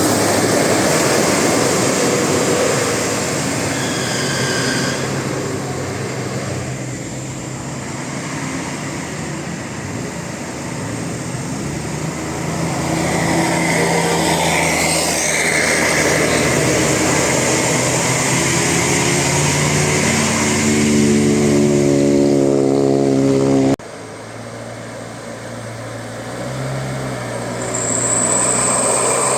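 Bus engine running under way, with its pitch rising and falling, and a sudden cut to a quieter sound about 24 seconds in.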